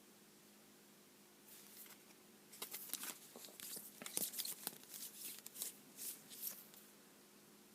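Yu-Gi-Oh trading cards being handled: a run of soft rustles and small clicks as cards slide against each other, starting about a second and a half in and stopping about a second before the end.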